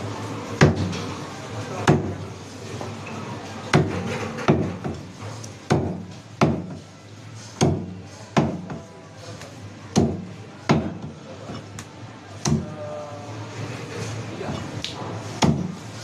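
A large broad-bladed knife chopping through a stingray wing onto a wooden chopping block: about a dozen sharp chops, irregularly spaced, roughly one every second or two.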